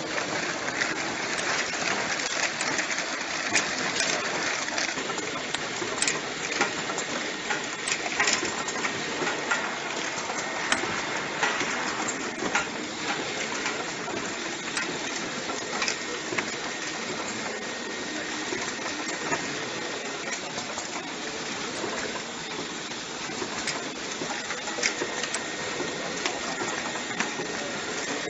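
Automatic bottle-capping line running: a steady mechanical whirr with frequent light clicks and clatter as plastic caps are fed and jars are indexed and capped.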